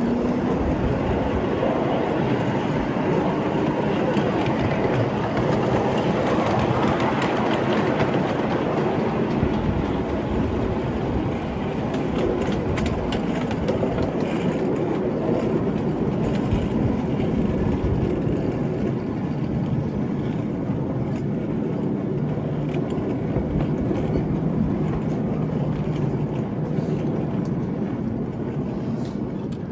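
Battery-powered 5-inch gauge ride-on Class 73 locomotive running along the track: a steady rumble of wheels on rail and electric traction motors, with scattered clicks, and no added sound unit.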